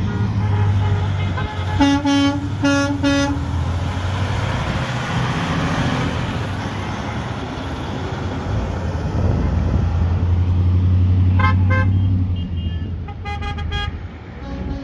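Convoy vehicles driving past and honking: a few short horn blasts about two seconds in, and more honks of a different pitch near the end, over the low drone of passing engines.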